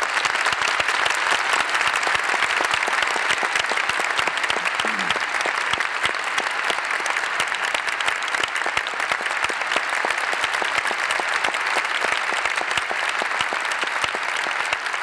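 Large theatre audience applauding, a steady, dense clapping that greets the end of the dance.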